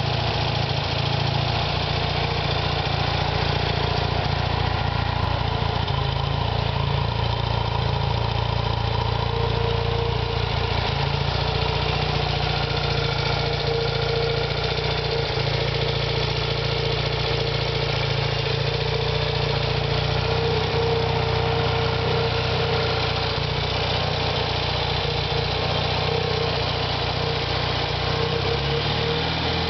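1975 BMW R90/6's air-cooled 900 cc flat-twin boxer engine idling steadily.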